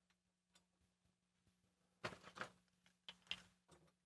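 Faint handling sounds of small hardware and a hand screwdriver being picked up on a wooden tabletop: a few soft clicks and rustles about two seconds in and again a second later, over a low steady hum.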